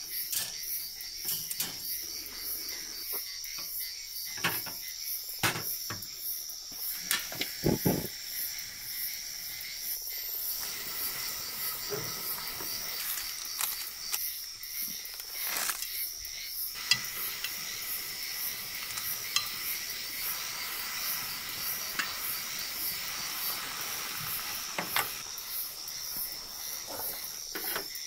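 Crickets chirping steadily, with scattered clinks and knocks of metal utensils and a pan. From about ten seconds in, a steady sizzle as food fries in a frying pan on a portable gas stove.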